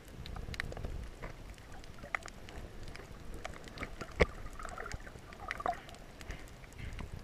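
Water heard with the microphone under the surface: a muffled, rumbling wash of moving water with scattered crackling clicks, a sharp knock about four seconds in, and a few brief squeaky gurgles.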